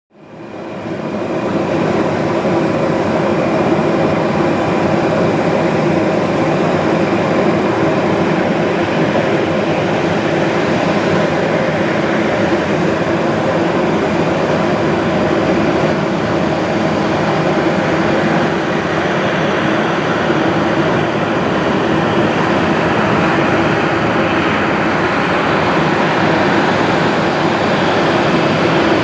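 Airbus A320 airliner's jet engines on landing, a loud steady rush of jet noise with a low hum of held tones in it, fading in at the start.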